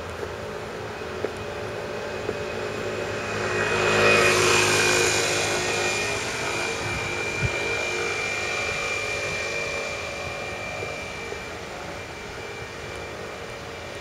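Jet aircraft passing overhead: a rushing hiss with a steady high whine swells for about four seconds, peaks, then fades slowly.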